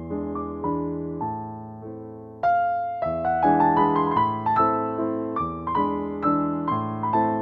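Soft piano music: struck notes and chords that fade, with a louder chord coming in about two and a half seconds in.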